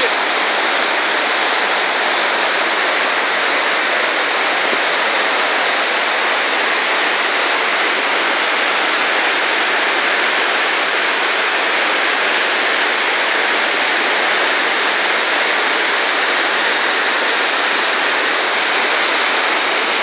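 Mountain waterfall and the rushing cascade below it, a loud, steady roar of falling and churning white water.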